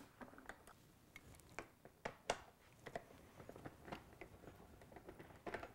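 Faint, irregular clicks and light metal taps from a hand tool undoing the seat's two 10 mm bolts, with a louder cluster of clicks near the end.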